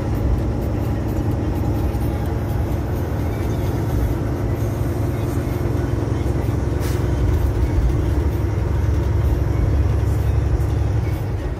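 Steady engine and tyre rumble inside a truck cab at highway cruising speed, with one short click about seven seconds in.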